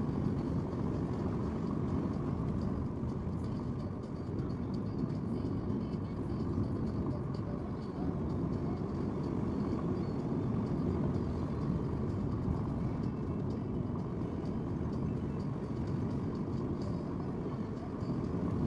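A car driving along a rough two-lane road: steady low engine and tyre rumble.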